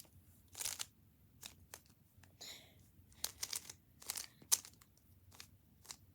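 Plastic Rubik's cube being twisted by hand: its layers turn with a quick run of irregular, sharp plastic clicks and short scraping rattles. The loudest click comes about four and a half seconds in.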